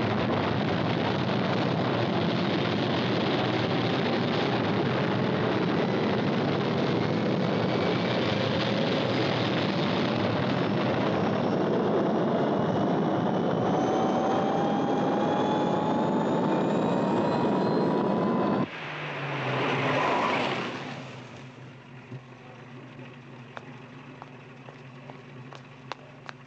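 Rocket launcher lifting off, a dramatised sound effect: a loud, steady rocket-motor roar with a whine rising slowly in pitch under it. It cuts off suddenly about two-thirds of the way in, swells briefly once more, then fades to a quiet low hum.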